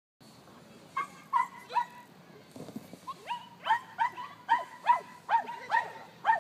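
A dog barking repeatedly in short barks: three about a second in, then after a short pause a steady run of about two to three barks a second.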